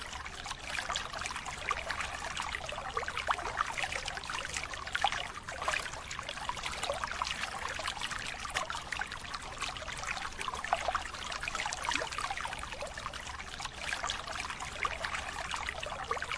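A dense patter of small water splashes and dribbles from live fish thrashing in a drag net held in shallow river water as fishermen sort them by hand.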